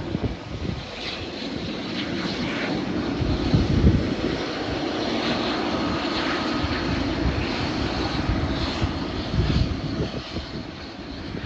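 Airliner engines running with a continuous rumble, a faint steady whine showing through in the middle stretch.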